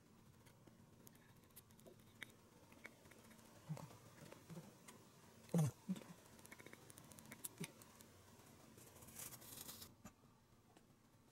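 Faint handling sounds: scattered small clicks and taps as a probiotic capsule is tapped and rubbed over a ceramic plate, with one louder short knock about halfway and a brief rustle near the end.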